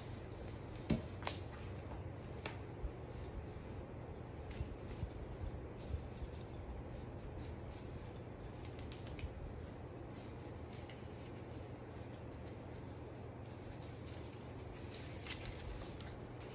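Scattered light clicks and clinks of a dog wheelchair's aluminium frame, buckles and strap fittings being handled and fitted together, over a steady low hum.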